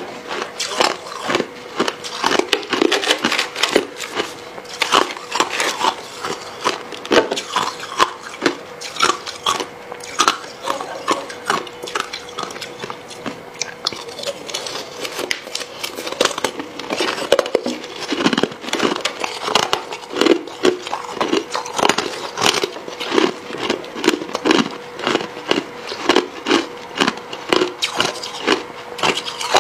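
Close-miked crunching and chewing of hard crushed ice: dense, irregular crackling bites throughout, with a metal spoon scooping the ice. A faint steady hum lies underneath.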